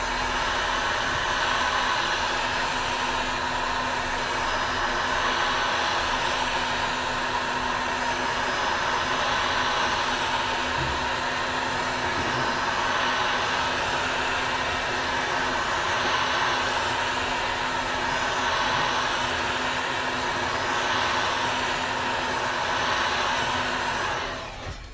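Heat gun running steadily, its fan blowing hot air onto a phone screen to soften the adhesive; it switches off just before the end.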